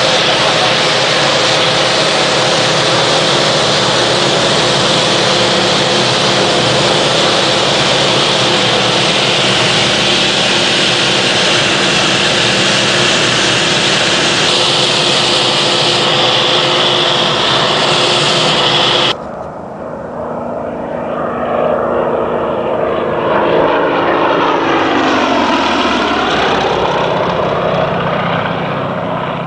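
Yak-54's nine-cylinder M-14P radial engine and propeller heard from inside the cockpit in cruise flight, a loud, steady drone. About two-thirds through it cuts off suddenly to the same plane heard from the ground, its engine and propeller note swelling as it flies past low over the runway and then easing off.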